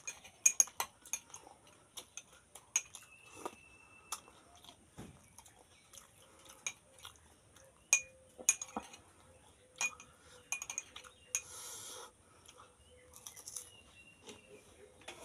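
Metal spoon clinking against a glass tumbler, a string of sharp, irregular clinks.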